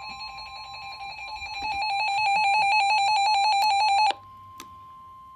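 Emergency Alert System attention signal: two steady tones sounding together, growing louder about a second and a half in and taking on a fast flutter, then cutting off sharply about four seconds in, leaving a fainter single steady tone.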